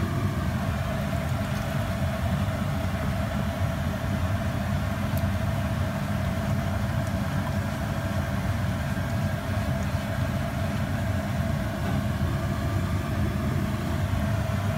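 A steady low hum, like a motor running, holding an even level throughout with a faint steady tone above it.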